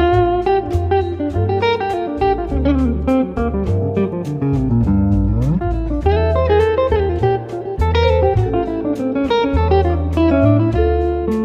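Background music: blues-style guitar over a bass line with a steady beat, with a bent note about halfway through.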